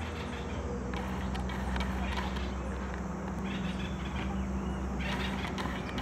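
Outdoor ambience: a steady low hum, with bursts of bird chirping coming and going several times.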